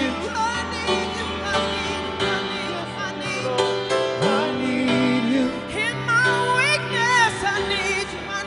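Piano playing slow sustained chords while a woman sings over it, her voice sliding and wavering in melodic runs, most busily near the end.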